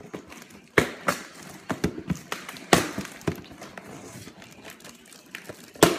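Packaging of a toy replica championship belt being handled and opened: irregular sharp clicks and knocks, the loudest near the end.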